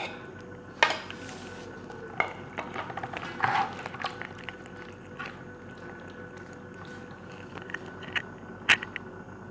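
A wire whisk and serving bowl clinking against an aluminium pot as thick marinade is scraped out onto chicken, then a hand rubbing the wet paste into the chicken pieces. Scattered sharp clinks and knocks, the loudest about a second in and again near the end.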